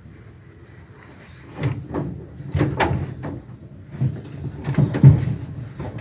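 Irregular knocks and scraping bumps against a glass-fronted snake enclosure, starting about a second and a half in and loudest about five seconds in.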